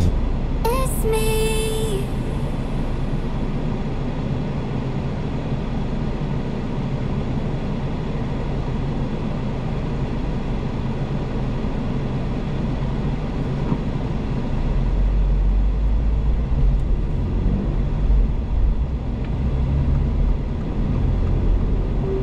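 Cabin noise of a Subaru BRZ driving on a city street: steady tyre and road rumble with its flat-four boxer engine underneath. The low rumble swells from about two-thirds of the way through as the car picks up speed.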